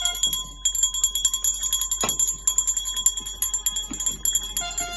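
Metal pots and pans being bashed in a fast, continuous clatter of strikes, each hit leaving a ringing metallic tone.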